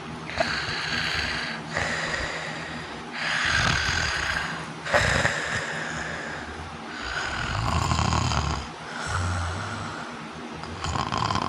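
Loud human snoring, a rasping snore on each breath and about one breath every one and a half to two seconds, with a sharp catch near five seconds in. It is the snoring of obstructive sleep apnea.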